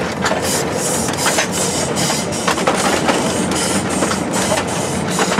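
15-inch gauge railway passenger carriage running along the track, heard from aboard: a loud, steady rattle and clatter of the coach and wheels with many quick, irregular clicks.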